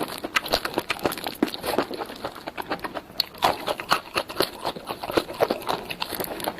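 Close-miked eating sounds: wet chewing and mouth smacks of spicy Korean food, coming in quick irregular clicks several times a second.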